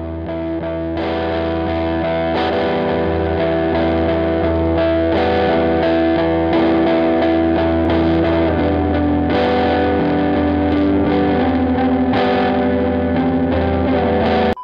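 Background music: held guitar chords with distortion over a steady low bass, swelling slightly in the first second and cutting off suddenly near the end.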